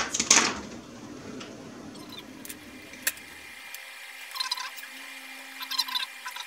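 A short loud rushing burst right at the start, then a single click and two quick clusters of small sharp clicks and taps as tools and the logic board are handled.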